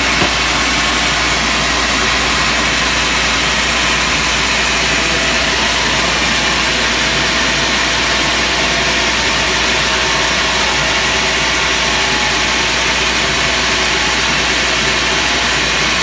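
Sawmill saw running steadily as it saws ulin (ironwood): a loud, unbroken mechanical noise with a constant low hum.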